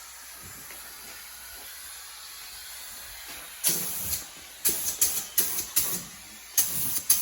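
Paint spray gun spraying the engine bay in a string of short hissing bursts, a couple a second, starting about halfway through, after a steady faint hiss.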